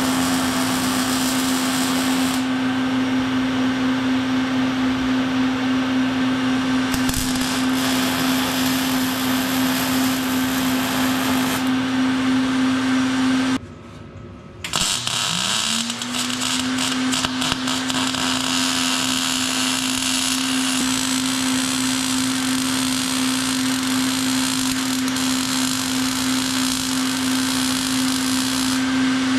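Handheld electric power tool running at a steady high speed in two long runs, each starting with a quick spin-up, with the motor's hum under a hissing working noise that changes now and then. It stops for about a second and a half near the middle.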